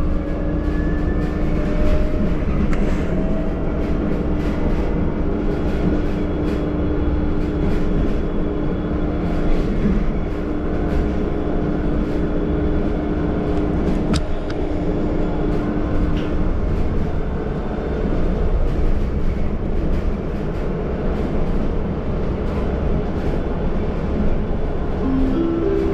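Moving city bus heard from inside: a steady low road-and-drive rumble with light rattling ticks throughout. A held whine over it fades out about two-thirds of the way through.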